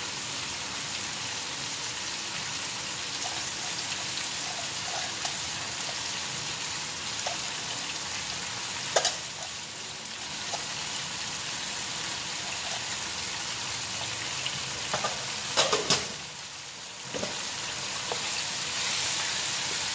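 Liver, onions and tomatoes sizzling steadily as they fry in oil in a pot on a gas stove. A few sharp knocks, like a wooden spoon against the pot, come about nine seconds in and again around fifteen to sixteen seconds.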